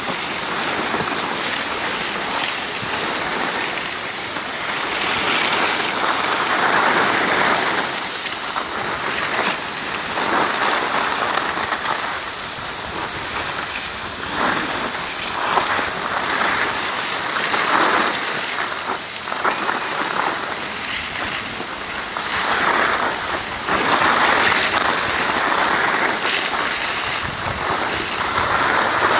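Skis sliding and scraping over packed snow: a steady hiss that swells and fades every few seconds.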